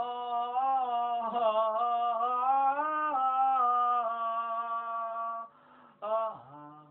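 A single voice singing long, chant-like held notes with a slight waver. It breaks off about five and a half seconds in, then a short note slides downward near the end.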